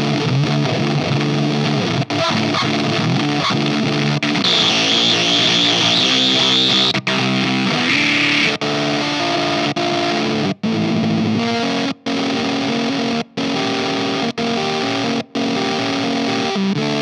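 1983 Gibson E2 Explorer played through a ZVex Fuzz Factory 7 fuzz pedal and a Marshall JCM 900 half stack: a heavily fuzzed riff of sustained distorted notes. A high steady squeal sits over the notes for a couple of seconds, starting about four seconds in. The sound stops dead for a moment several times.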